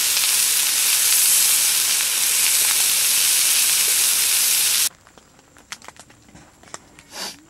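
Steak sizzling in a cast-iron skillet: a loud, steady hiss that cuts off suddenly about five seconds in, leaving only a few faint ticks.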